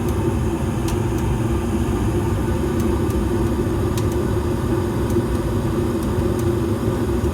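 Evcon 80% gas furnace firing with its burners lit: a steady rumble of the gas flames over the hum of the draft inducer motor. This is the warm-up stage, before the blower fan has kicked on. A few faint ticks come now and then.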